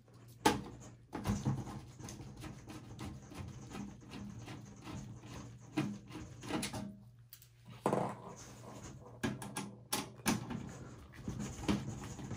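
Screwdriver backing screws out of a desktop motherboard in a steel PC case: irregular clicks, small knocks and scrapes of the tool and parts against the metal chassis, over a faint steady hum.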